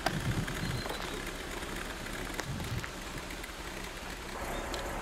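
Steady outdoor background noise picked up by a camcorder microphone, with a few faint clicks from the camera being handled.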